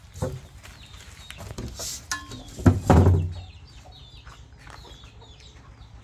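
Chickens clucking and calling, with short high falling chirps repeating through the second half. A loud low noise lasting about half a second sounds about three seconds in.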